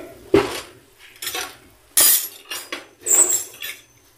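Kitchen utensils and dishes clinking and clattering off-camera: about six separate sharp knocks, the loudest about two and three seconds in, one leaving a brief high ring.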